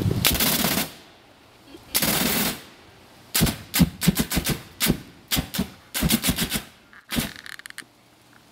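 Propane flame poofer firing bursts of flame: a burst of nearly a second, another of about half a second, then a rapid string of a dozen or so short puffs, with a few faint flickers near the end.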